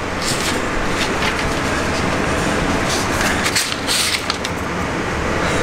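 Sheets of printed paper rustling and crinkling as they are handled and pressed onto a wall, over a steady rumbling noise.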